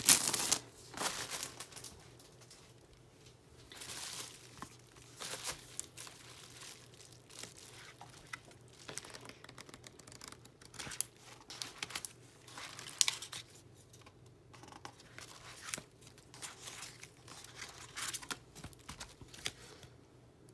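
Clear plastic sleeve crinkling loudly as an album is pulled out of it, then scattered soft rustles and clicks as the album's photobook pages and paper photo cards are handled.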